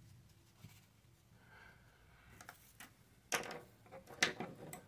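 Quiet handling noises from a Glock frame and cleaning tools being moved about: a few light clicks, then two short rustling scrapes about three and four seconds in.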